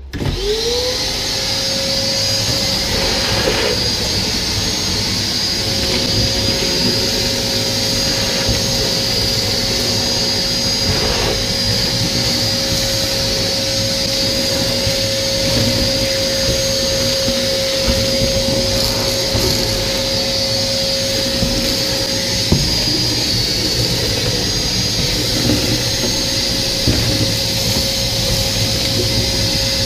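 Shop vac switched on, its motor spinning up to a steady whine within the first second, then running evenly while its hose sucks up loose foam debris from a boat's hull floor. The vac has just been unclogged and pulls strongly.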